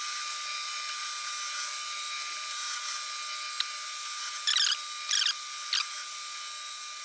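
Metal lathe running with a 3/16-inch pilot drill in the tailstock chuck boring into a metal bar, a steady thin whine and hiss with no low end. In the second half come a few short, squeaky scraping sounds from the drill cutting.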